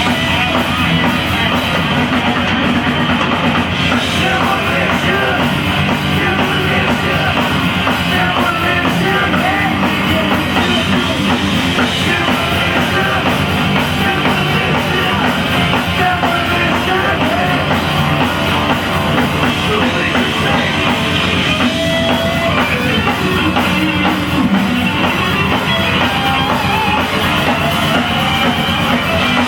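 A rock band playing loud and steady live, with electric guitar, bass and a driving drum kit.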